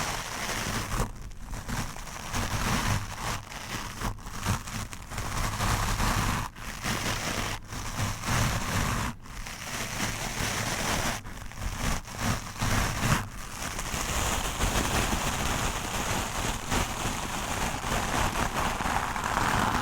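Stiff wooden brush scrubbed hard against a microphone: rough, scratchy strokes with brief breaks between them, turning to nearly unbroken scrubbing for the last several seconds.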